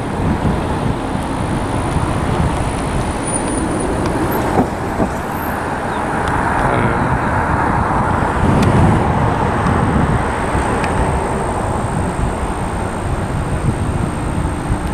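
Steady outdoor background rumble and hiss, with a swell about two-thirds of the way through.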